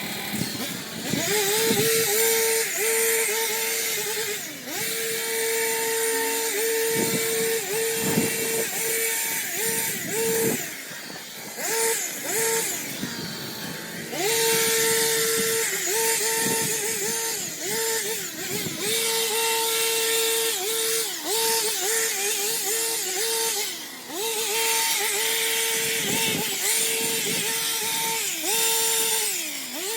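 Motorised garden trimmer running at high speed, its pitch sagging briefly and recovering again and again as it cuts into growth, over a steady hiss of cutting.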